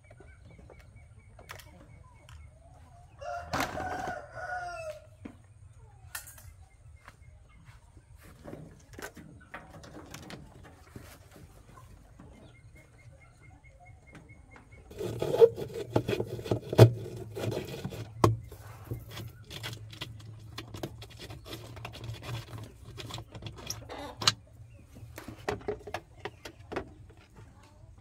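A rooster crows once about three seconds in. From about the middle, the loudest part: a run of knocks and clattering from parts handled inside a washing machine's drum, over a low hum.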